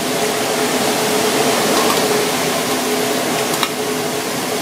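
Steady hiss and hum of a commercial kitchen's gas range as dark sauce is poured into a wok of broth, with a light clink of a utensil about three and a half seconds in.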